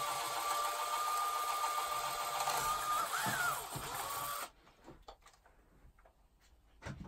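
Small electric drill with a 3 mm bit running with a steady high whine as it drills through a plywood roadbed. The pitch wavers briefly about three seconds in, and the motor cuts off suddenly about four and a half seconds in, followed by a few faint handling clicks.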